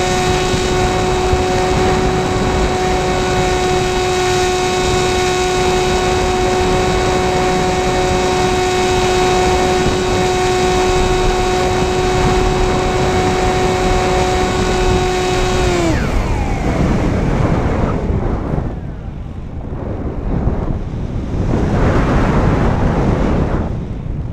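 Sky Eye RC plane's electric motor and propeller running at steady throttle with a high, even whine, recorded by the onboard camera. About sixteen seconds in, the whine glides down and stops as the throttle is cut. Wind then rushes over the microphone in swells as the plane glides.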